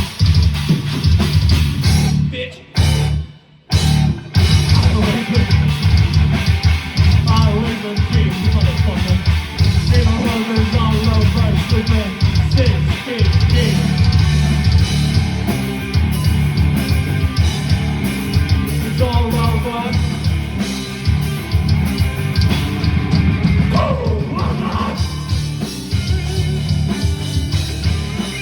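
Loud rock music with a drum kit and singing, with a brief break about three seconds in.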